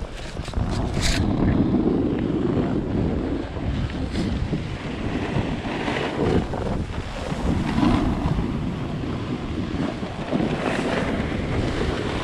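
Wind rushing over the microphone during a snowboard run, coming in uneven surges, with a few sharp clicks in the first second.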